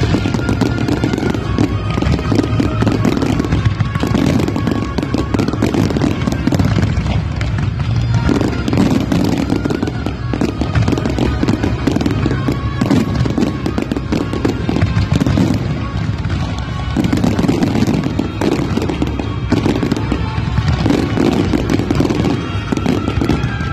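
Large aerial fireworks display going off in a dense, continuous barrage of bangs and crackles, with music playing alongside.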